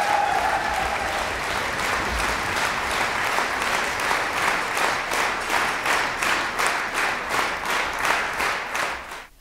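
Concert-hall audience applauding. About halfway through, the clapping falls into a steady, even rhythm, and it dies away just before the end.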